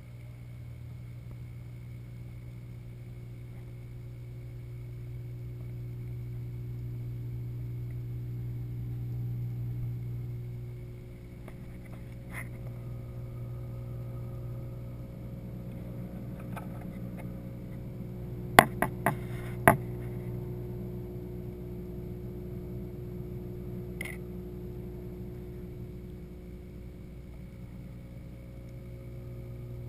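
Steady electric hum of aquarium circulation pumps, heard underwater. Several sharp clicks come in a quick cluster past the middle, with single clicks a few seconds before and after it.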